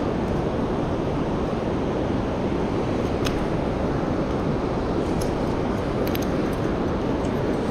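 Steady rushing of fast river current flowing around a rock close by, with a few faint clicks.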